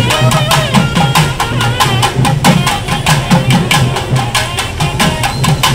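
Procession drum band: drums slung at the waist are beaten with sticks in a fast, steady beat of about five strokes a second. A high, wavering melody plays over the drumming in the first couple of seconds.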